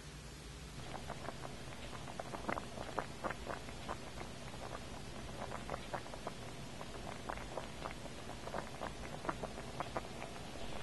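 Water coming to the boil in a stainless steel pot around a corned beef brisket: irregular bubbling pops and ticks that start about a second in and keep on unevenly.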